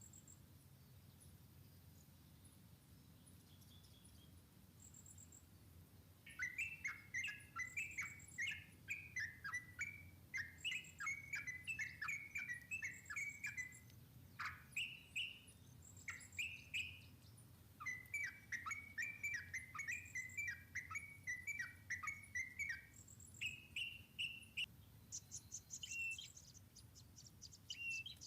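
A songbird singing rapid, chattering runs of chirping notes, starting about six seconds in, pausing, then starting again, with a few higher single calls near the end.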